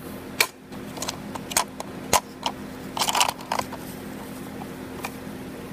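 Irregular sharp clicks and taps of fingers handling a small toy truck and prying at its tiny rear doors, busiest in the first three seconds or so, over a faint steady hum.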